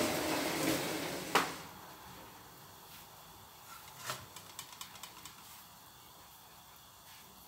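Gas wok burner running with a steady roar, shut off with a sharp click about a second and a half in. A few faint light taps follow.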